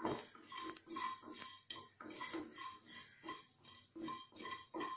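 A spatula scraping and stirring coriander seeds around a nonstick kadai as they roast, in short repeated strokes at about three a second.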